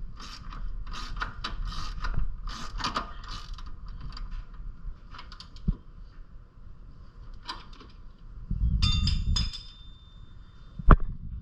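Metal hand tools at work on a bolt, with irregular ratchet clicks and clinks of metal on metal and a rattling flurry about two-thirds through. A single sharp metal knock near the end is the loudest sound.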